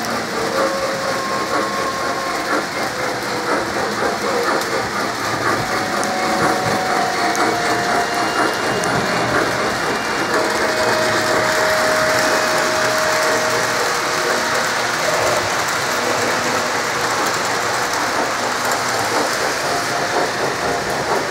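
Model electric trains running on the layout's track: a steady, dense clatter of wheels and gearing, with a few faint held tones through it.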